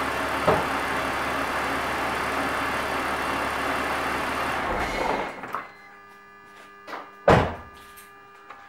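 BMW E46 inline-six engine idling steadily, then switched off about five seconds in, with its running winding down. A little later comes a soft knock and then one loud thump.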